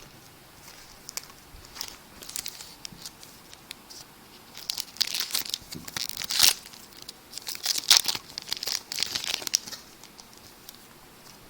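Foil wrapper of a baseball card pack being torn open and crinkled in hand. It makes scattered crackling rustles that grow louder and busier between about five and ten seconds in.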